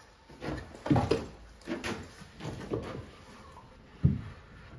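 Pine timber pieces being handled and set against a wooden stair frame: a run of light wooden knocks and scrapes, with a firmer knock near the end.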